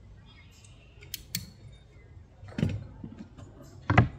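Caulking gun clicking twice as construction adhesive is run onto a 2x6 truss joint, then two knocks of wood being set down, the second near the end and the loudest.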